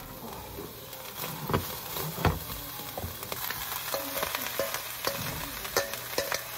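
Shredded cabbage sizzling in hot oil in a stainless steel frying pan as it is stir-fried, a steady hiss with scattered clicks and knocks of the utensil against the pan, more frequent in the second half.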